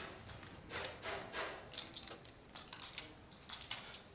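Poker chips clicking against each other as a player handles and shuffles them: a faint, irregular run of light clicks, several a second.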